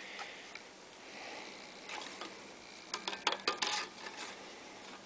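Light clicks and taps of a factory intake gasket being handled and fitted against the ports of a cast aluminum intake manifold, bunched about three to four seconds in.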